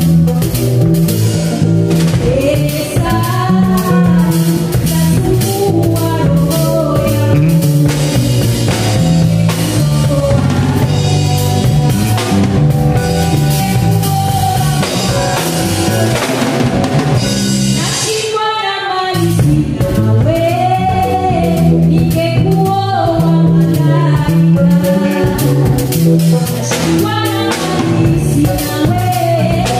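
Live band performance: a woman singing lead over drum kit, bass and keyboard. The band briefly drops out about two-thirds of the way through, then comes back in under the voice.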